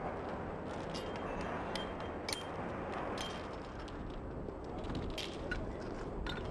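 Steel lifting chain clinking as Grade 10 chain sling legs are handled and hooked up: scattered sharp metallic clinks, some ringing briefly, over a steady background noise.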